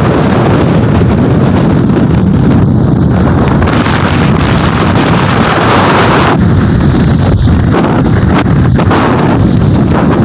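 Strong wind blowing across the microphone: a loud, steady rush of noise with uneven gusts, one stronger stretch in the middle.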